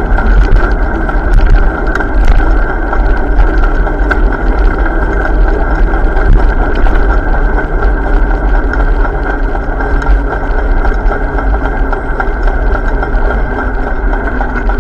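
Steady, loud riding noise from a bike in motion, a continuous rumble with no break.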